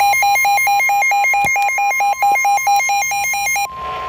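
Weather radio emergency alert alarm: a harsh electronic warble switching rapidly between a low and a high beep, about seven or eight times a second, marking a severe thunderstorm warning. Near the end it stops and gives way to the steady single-pitch 1050 Hz weather radio warning tone.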